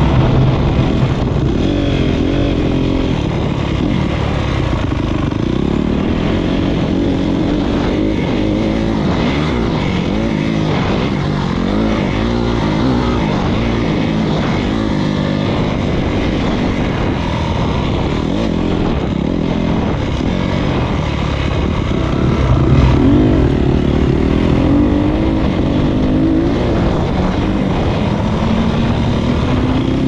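Honda CRF250R four-stroke single-cylinder motocross bike being ridden hard around a dirt track, heard on board: the engine revs rise and fall continually through the gears and corners, with a louder burst of throttle about two-thirds of the way through.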